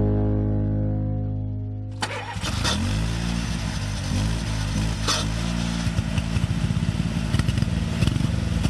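Background music fading out, then about two seconds in a sudden cut to a Honda HT4213 lawn tractor's engine running, its pitch rising and falling.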